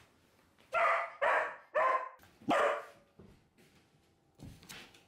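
Goldendoodle puppy barking four times in quick succession.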